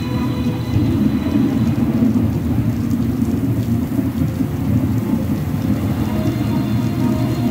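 Storm sound effect from the show's loudspeakers: a steady, heavy rush of rain with a deep thunder rumble. A music score fades out in the first second or so and comes back in near the end.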